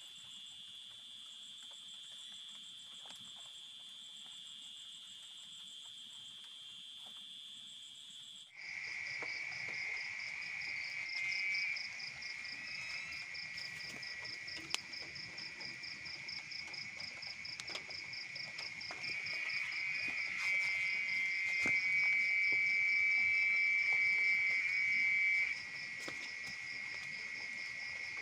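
Forest night chorus of calling insects and frogs: steady, shrill, pulsing trills. About a third of the way in the chorus changes abruptly to a louder, lower-pitched trill, which swells for a few seconds near the end.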